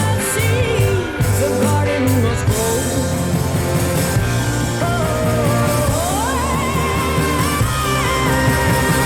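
Rock song with a singer over bass and guitar, played back through a hi-fi loudspeaker; the voice holds long, wavering notes, rising to a higher sustained line about six seconds in.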